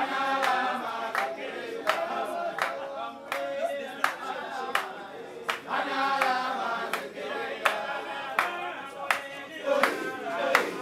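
Several voices singing together to steady rhythmic hand clapping, about three claps every two seconds.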